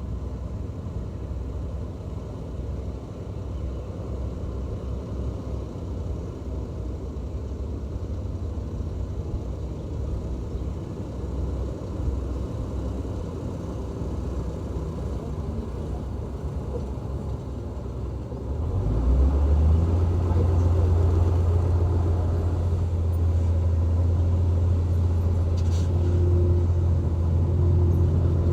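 Heavy earthmoving machine's diesel engine running with a low rumble. About two-thirds of the way through it grows markedly louder into a strong, steady low drone.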